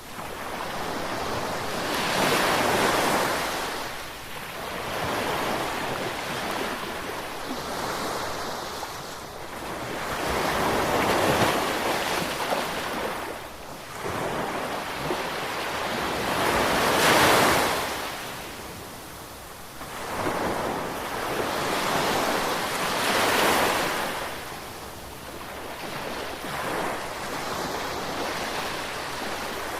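Ocean waves breaking on the shore and washing back, in slow swells every five to six seconds.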